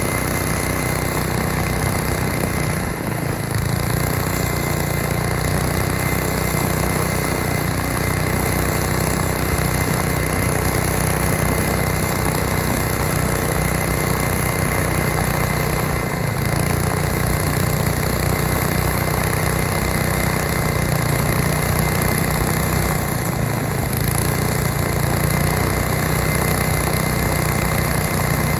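Small gas engine of a homemade tracked snow sled running steadily, with three brief dips in its sound.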